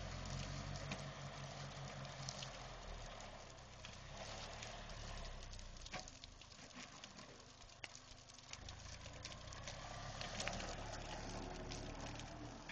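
Old Hough HE wheel loader's engine running low and steady as it pushes brush; the engine sound dips for a few seconds midway and comes back. Scattered sharp crackles and snaps from branches and burning brush throughout.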